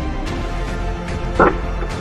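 Background music with a steady, dense sound, and one short, sharp burst about one and a half seconds in.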